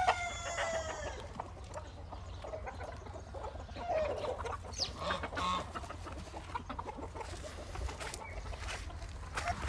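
Chickens clucking and calling; a long call with a falling pitch trails off about a second in, and shorter calls follow in the middle of the stretch.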